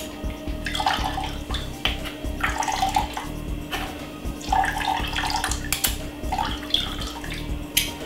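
Blended sugar cane juice trickling and splashing through a mesh strainer into a glass jug, with a few short clicks.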